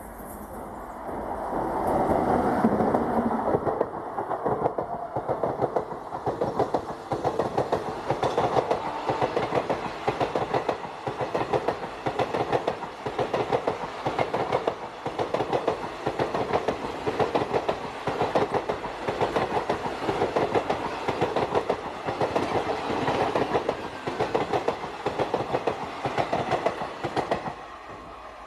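An express passenger train hauled by a WAP7 electric locomotive passes at speed. The locomotive goes by about two seconds in. Then the coaches' wheels clatter over the rail joints in a steady, repeating clickety-clack, which drops away as the last coach passes near the end.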